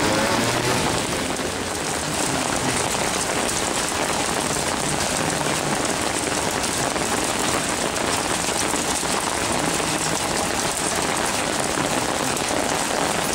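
Thunderstorm rain falling steadily, an even hiss of rain on the ground and surroundings.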